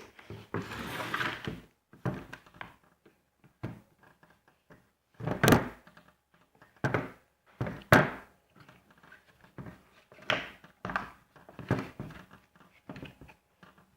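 Irregular knocks, clicks and clunks of an electric drill's casing and parts being handled and worked on during disassembly, with a rustle of handling near the start and two louder sharp knocks, one about five and a half seconds in and one about eight seconds in.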